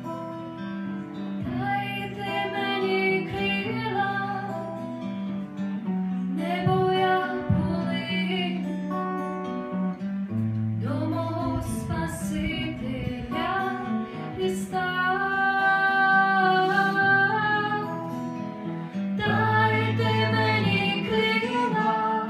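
Acoustic guitar strumming a slow song, with a woman singing the melody over it from about a second and a half in.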